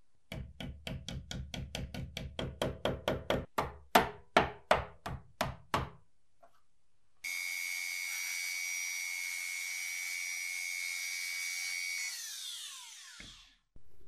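A quick series of about twenty knocks, the last few louder and more spaced out. Then a small handheld rotary tool fitted with a sanding drum runs with a steady high whine for about five seconds and spins down with a falling pitch after it is switched off.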